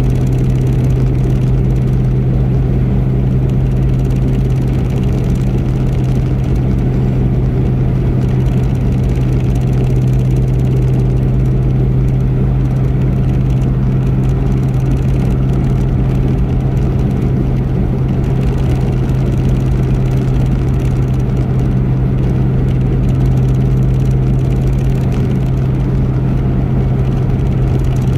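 Car driving steadily at highway speed: an even drone of engine and tyre noise with a strong, steady deep hum that does not change.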